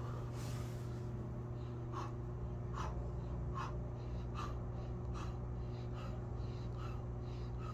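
A man breathing hard in short, sharp exhales while doing push-ups, about one puff every 0.8 seconds (one per rep), starting about two seconds in. A steady low hum runs underneath.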